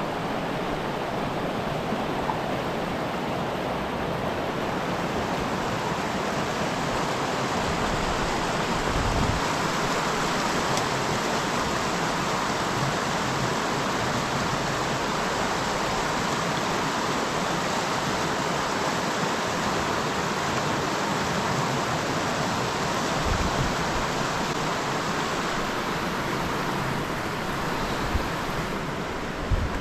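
River rapids: water rushing steadily, with a few brief low thumps.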